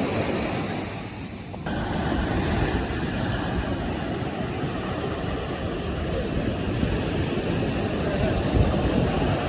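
Sea surf washing on a beach with wind buffeting the microphone, a steady rushing noise. It dips briefly about a second in, then cuts abruptly back to the same rushing.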